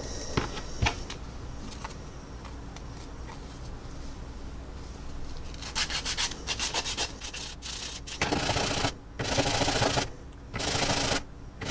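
Resin ejection-seat casting being sanded on the coarse side of a Flory Models sanding stick. It starts about halfway in with quick short strokes, then turns to several longer back-and-forth strokes, grinding off what is left of the casting block.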